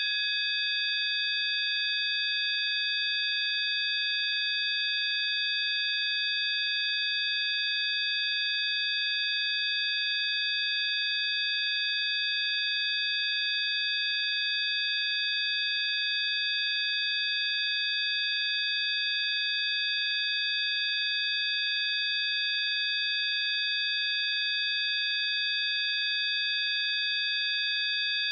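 Electronic sine-tone drone of a healing-frequency track: several high-pitched pure tones layered together and held perfectly steady, with a faint hiss around them.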